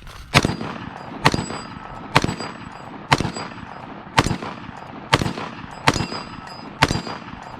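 Shots from an AR-15-style rifle fired at a steady pace, about one a second, eight in all, each followed by a short metallic ring.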